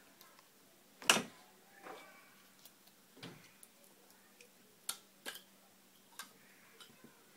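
Handling noise from small plastic items being put into a cloth pouch: scattered clicks and knocks, with one louder thump about a second in.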